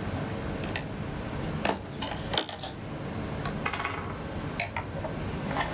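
Irregular clicks and light clatter of an oscilloscope's case and parts being handled as a retaining tab is released, several sharp knocks scattered through.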